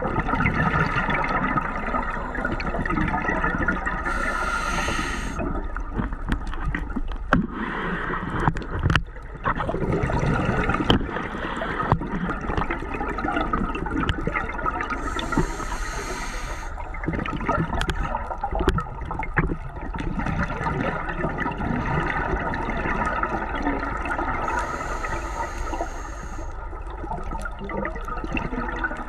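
Underwater reef ambience with a diver's scuba exhalation bubbles rushing past three times, about every ten seconds, each burst lasting a second or two, over scattered sharp clicks.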